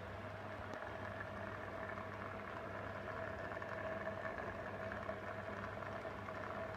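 Aquarium pump running: a steady hum with bubbling water.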